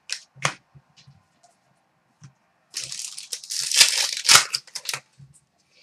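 Foil wrapper of a hockey card pack torn open and crinkled, a dense crackling rustle lasting about two seconds, starting near the middle. A few light taps of cards being handled come before it.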